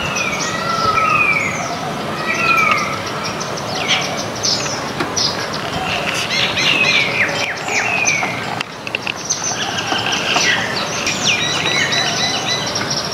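Flock of small birds, baya weavers among them, chirping and calling over one another in a dense chatter. A run of short falling whistles repeats in the first three seconds, and a buzzy trill comes in near the end.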